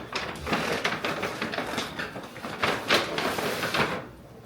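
Paper fast-food wrappers and bags rustling and crinkling in irregular bursts as food is handled and unwrapped.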